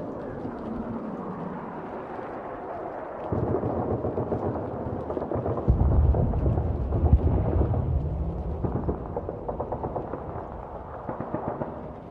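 A sound-effect track of deep rumbling booms that swell about three seconds in and louder again near six seconds, with a dense crackle through the second half.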